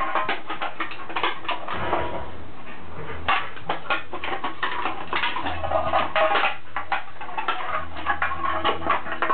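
A puppy licking and nosing an empty tin soup can: quick, irregular clicks, scrapes and clinks of tongue and metal can, several a second.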